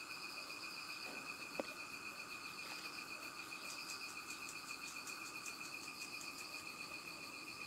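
Insects chirring in a steady, high, finely pulsing trill, with one sharp click about a second and a half in.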